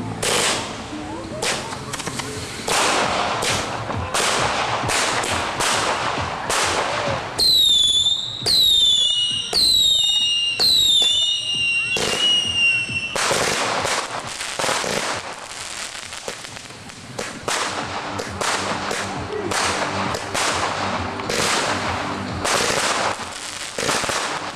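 Daytime fireworks going off in a rapid series of sharp bangs. About seven seconds in, a run of about five whistles, each falling in pitch, ends in one held whistle before the bangs resume.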